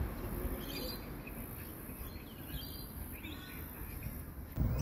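Outdoor background noise with a few short bird chirps. Near the end a louder low rumble sets in.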